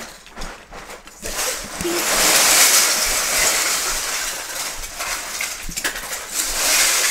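Loose LEGO bricks pouring out of a plastic storage bin onto a big pile of bricks: a continuous rattling clatter of small plastic pieces that starts about a second in and goes on for several seconds.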